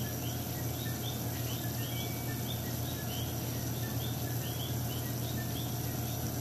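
Chirping insects: short high chirps, two or three a second, over a steady low hum.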